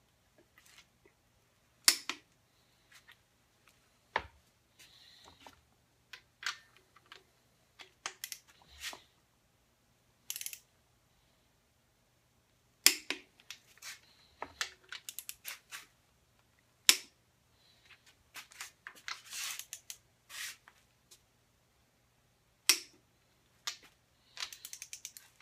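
Click-type torque wrench tightening ARP head stud nuts, giving a sharp click each time a nut reaches the set torque: about five loud clicks spread irregularly, with quieter ratchet clicking and rattling between them as the wrench is reset and moved to the next stud.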